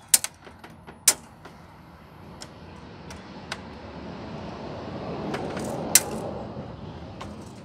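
A handful of sharp clicks and taps from a steel tape measure being handled against the grille, the loudest about six seconds in. Under them a rushing noise swells over several seconds and fades near the end.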